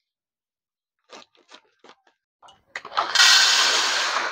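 A plastic packet being snipped open with scissors makes a few short crinkling snips. Then dry sago pearls (sabudana) are poured from the packet into a steel bowl, a loud steady rush of pearls hitting the metal for the last second and a half.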